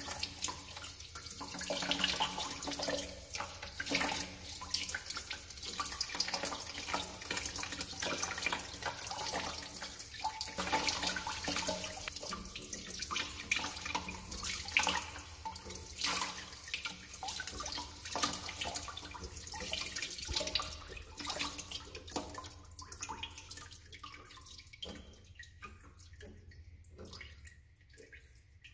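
Drain water trickling and splashing out of the opened bottom of a chrome sink P-trap into a bucket and over a hand, as the trap is emptied to clear a clog. Many small splashes and drips; the flow thins and grows quieter over the last several seconds.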